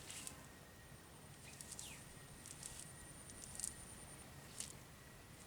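Faint rural outdoor ambience: a thin, very high insect-like trill that runs in stretches and breaks off now and then, with scattered short chirps and clicks.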